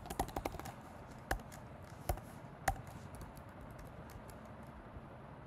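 Computer keyboard typing: a quick run of keystrokes at the start, then a few single, sharper key presses spaced out, then faint scattered taps.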